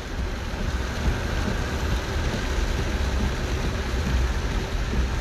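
Steady rumble and hiss of a car driving slowly, engine and tyres on a wet road.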